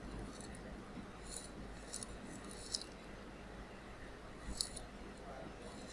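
A few faint, scattered clicks of a computer keyboard and mouse as text is edited, over a low steady hum.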